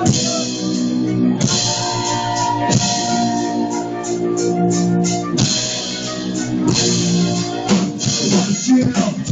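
Live band playing amplified, with a drum kit and electric guitar: held chords under cymbal crashes about every second and a half.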